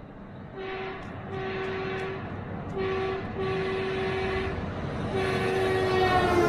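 Semi truck's air horn sounding about five blasts on one steady note, the last and longest dropping in pitch as the truck passes.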